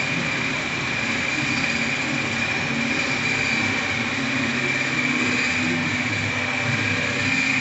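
Steady mechanical hum and hiss with a thin, high, unbroken whine, holding at an even level throughout.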